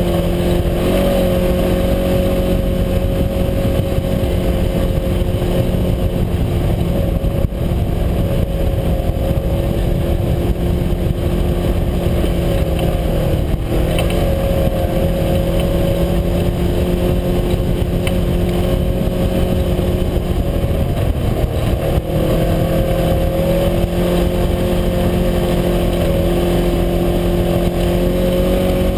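UTV engine running steadily under way, with a constant low rumble from the ride. Its pitch dips and recovers briefly twice, near the middle and about three quarters through.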